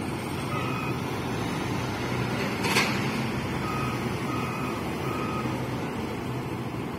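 A heavy diesel engine running steadily, with a reversing alarm beeping briefly near the start and then three times in a row a little past halfway. A short, sharp burst of noise stands out about three seconds in.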